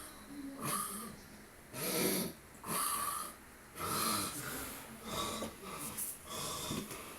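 A man snoring, a run of snores about one a second.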